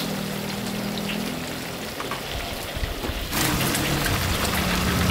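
Hot oil sizzling and crackling in a wok over a gas stove. About three seconds in, it becomes louder, busier deep-frying with a low hum underneath, as battered pieces of chicken bubble in a wok of oil.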